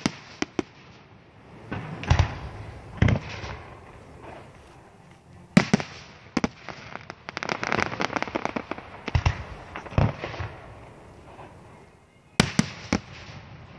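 Aerial firework shells bursting in a string of sharp bangs at irregular intervals. A dense run of rapid crackling pops comes in the middle, then a short lull, and two more bangs near the end.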